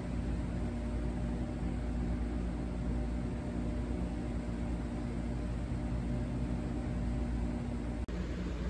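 Steady low machine hum with a soft hiss, cutting out for an instant near the end.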